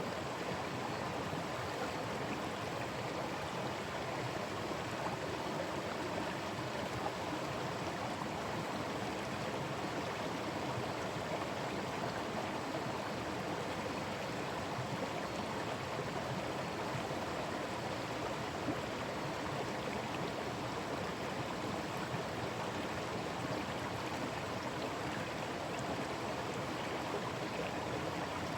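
Forest stream running steadily, an even rush of flowing water.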